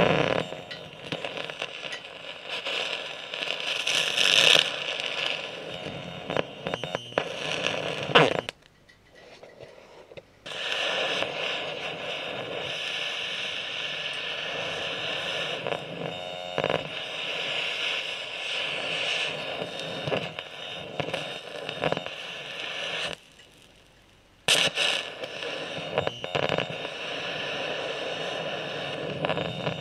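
Carbon arc from a graphite gouging rod on an arc welder, crackling and hissing steadily as it melts rock. The sound drops away twice for a couple of seconds, about eight seconds in and again about twenty-three seconds in, then starts up again.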